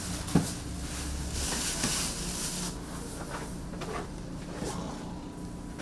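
Croquettes deep-frying in hot oil: a steady sizzle, with a sharp click of a utensil about half a second in.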